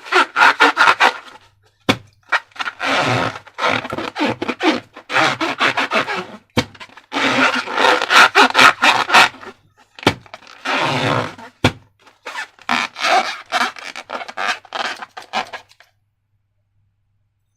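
Slime being worked by hand, giving sticky, crackling squishes in bursts of a second or two with short gaps between them. There are a few sharp clicks along the way, and the sound stops shortly before the end.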